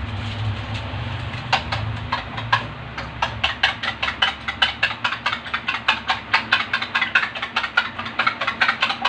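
Metal spoon beating two eggs in a ceramic plate, clinking against the plate in a fast regular rhythm of about four strokes a second from about three seconds in, after a few scattered clinks. A low steady hum is heard in the first few seconds.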